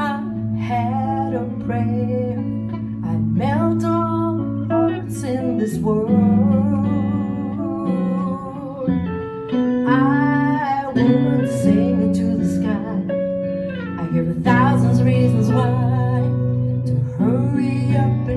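Live acoustic guitar music: an instrumental passage of a song, a moving melody over held chords.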